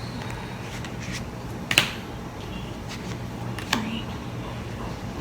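Tarot or oracle cards being handled and drawn: two sharp snaps or taps about two seconds apart over a low steady hum.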